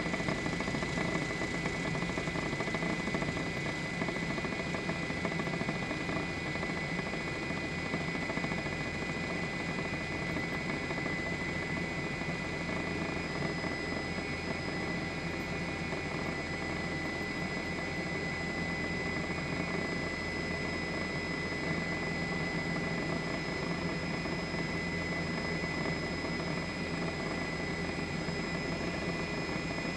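Steady drone of a helicopter's engine and rotor, with constant high-pitched whines over a low hum.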